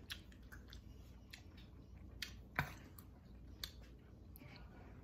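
Close-up chewing of a soft, sticky caramel-cream candy with Oreo cookie pieces: scattered small clicks and smacks of the mouth, one louder about two and a half seconds in.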